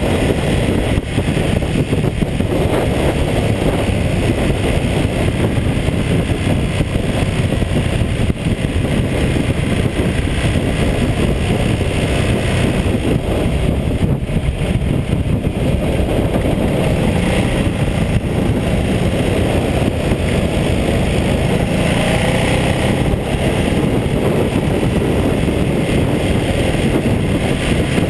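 Ducati Multistrada 1200S's L-twin engine running at cruising speed on the open road, mixed with steady wind rush over the bike-mounted camera.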